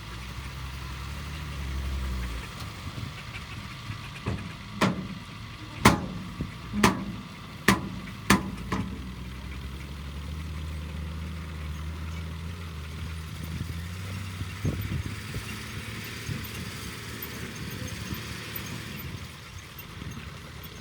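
Heavy diesel construction-machine engine running steadily. A quick run of about seven sharp knocks comes between about four and nine seconds in, with one more near fifteen seconds.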